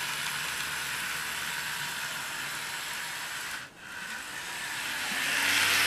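Motor and gears of an Athearn Blue Box SW1000 HO-scale model switcher whirring as it runs along the track, a run the owner rates only an OK runner. The sound dips out briefly about two-thirds in, then grows louder near the end.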